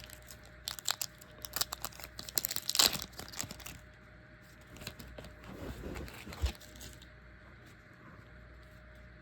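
A Panini Donruss trading-card pack being torn open, its wrapper crinkling and tearing for the first four seconds or so, then quieter rustling and handling of the cards.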